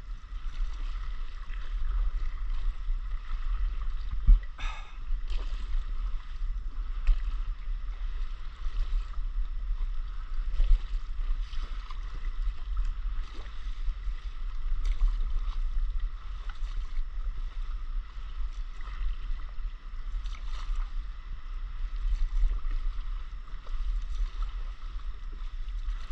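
Paddling a stand-up paddleboard on calm sea: water lapping with occasional short paddle splashes, over a steady low wind rumble on the microphone.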